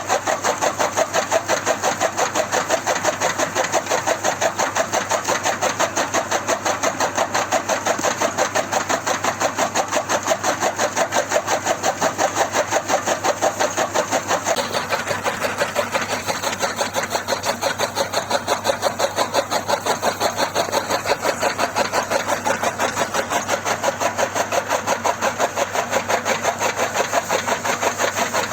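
Tractor engine running at a steady chug, about five even beats a second.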